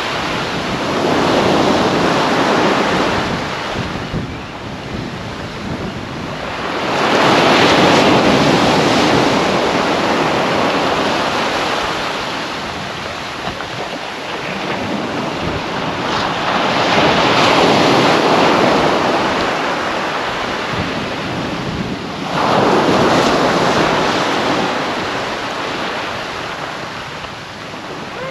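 Surf breaking and washing up a sand and shingle beach, surging louder four times as successive waves come in and then draining back between them.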